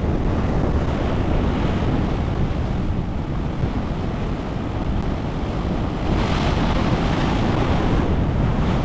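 Heavy ocean surf breaking and washing in foam, mixed with wind buffeting the microphone in a steady low rumble. About six seconds in, a wave breaks and the sound turns brighter and hissier.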